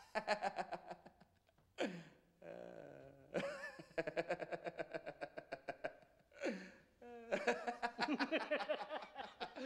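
Men laughing in three long bouts of quick, pulsing laughter, with short vocal sounds between them.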